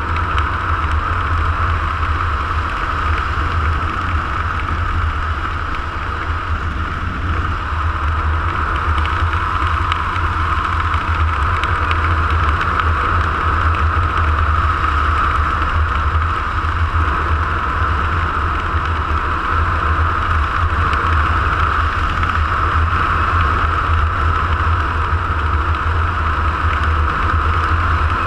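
Steady drone of a small aircraft's motor and propeller, mixed with wind rushing over the camera mounted on it, holding an even level as the aircraft descends to land.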